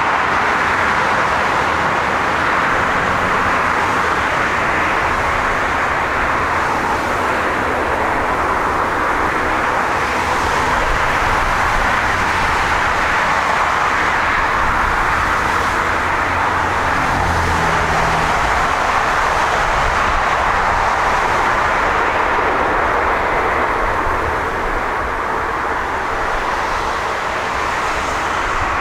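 Jet airliner engines running loud and steady, easing slightly near the end.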